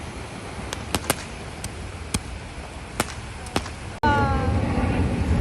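Scattered sharp clicks or taps at irregular intervals over steady background noise. About four seconds in there is an abrupt cut to a louder scene, where a short falling animal call starts.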